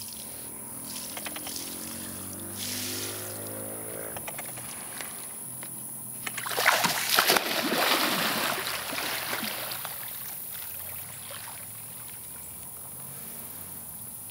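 Light splashes and drips of water, then about six seconds in a capybara plunging into a muddy pond. The big splash is followed by a few seconds of churning water that settles as she swims.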